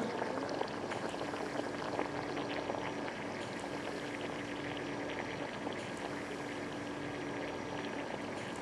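Hot pot broth boiling at the table, a continuous fine crackle of bubbles, with a steady low hum underneath.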